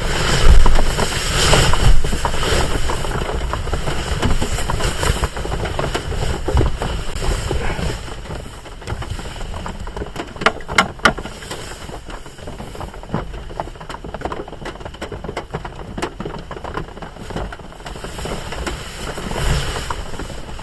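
Steady rain with scattered drops ticking, and a few low thumps in the first couple of seconds.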